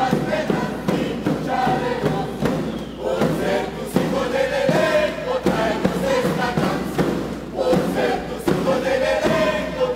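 Sikuri ensemble of Andean panpipes (sikus) playing a breathy melody together in several parts, over steady drum beats.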